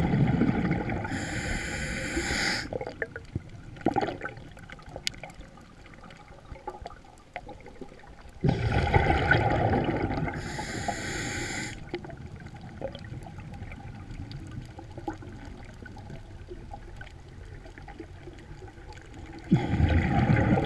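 A scuba diver breathing through a regulator: each breath is a deep bubbling rush followed by a high hiss, repeated about every ten seconds. Between breaths there is a quieter underwater background with faint humpback whale song and small clicks.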